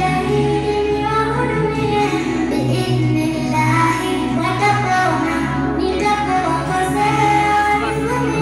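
A girl singing a nasheed into a microphone, amplified over an accompaniment of sustained low notes that change every second or two.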